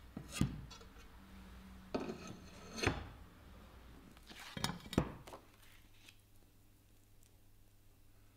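Glass and hand tools handled on a workbench: five or six light knocks and clinks in the first five seconds as a glass sheet and template are set out for cutting, then it goes quiet.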